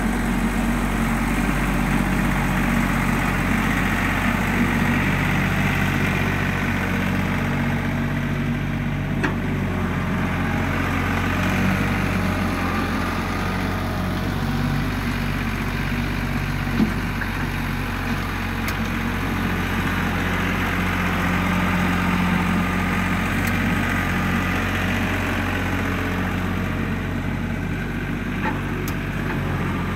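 LS compact tractor's diesel engine running steadily while it pulls a box blade across loose dirt, with one brief sharp knock about halfway through.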